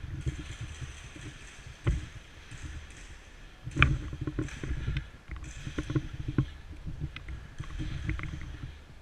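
Low rumbling handling and movement noise on a player-worn microphone, with a few sharp knocks. The loudest knock comes about four seconds in.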